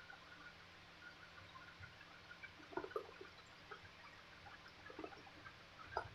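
Near silence, broken by a few faint light clicks and taps of small objects being handled, in three small groups: about three seconds in, about five seconds in, and near the end.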